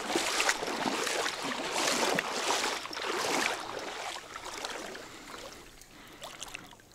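Water sloshing and splashing in repeated swells, like steps wading through shallow water, growing fainter toward the end.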